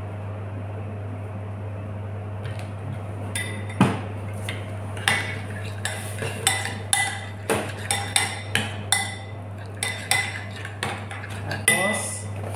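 Metal spoon clinking and scraping against a glass bowl while a thick marinade is stirred, a sharp ringing clink every second or so after the first few seconds. A steady low hum sits underneath throughout.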